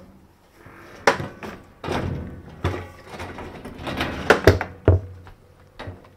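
Washing machine drum being handled and fitted into the tub: a run of knocks and thunks with scraping and rubbing between them, the loudest knocks in the second half.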